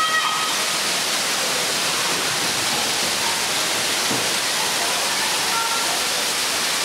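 Steady rushing and splashing of water from pool fountain jets and spouting water features, an even hiss that holds at one level throughout.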